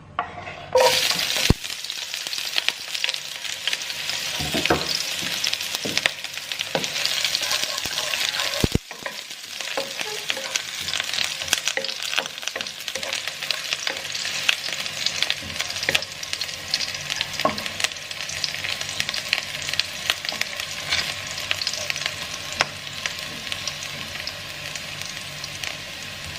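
Ingredients for a vegetable stir-fry sizzling in hot oil in a pan. The sizzle starts suddenly about a second in as they go in, then keeps going while they are stirred, with frequent clicks and scrapes of the spatula against the pan.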